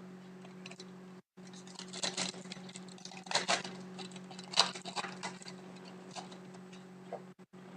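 Hockey trading cards being flipped through and handled, with light slaps and rustles at irregular moments over a steady low hum.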